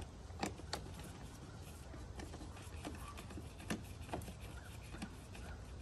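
A few faint, scattered clicks as a T20 Torx screwdriver slowly turns out a screw holding a mass air flow sensor in a BMW M6 engine's intake.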